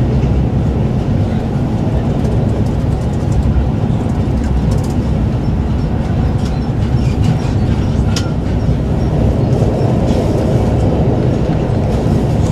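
Passenger train running at speed, heard from inside the carriage: a steady rumble of wheels on rails, with scattered light clicks and knocks, one sharper click about eight seconds in.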